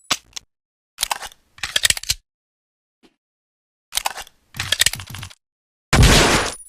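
Clusters of sharp metallic clicks and rattles from an M1911A1 .45 ACP pistol, then a single loud pistol shot near the end that dies away quickly.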